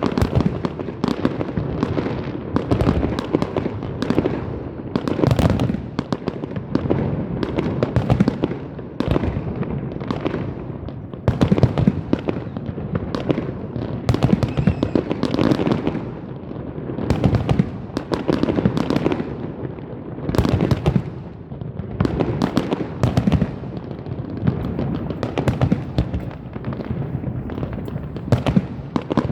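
Fireworks going off in rapid succession: a continuous barrage of bangs and crackles, many per second, with no pause.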